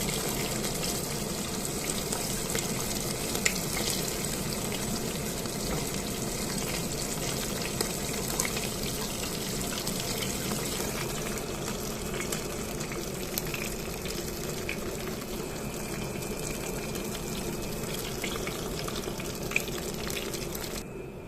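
Hot oil sizzling and crackling steadily as pieces of seigo (young sea bass) deep-fry for karaage.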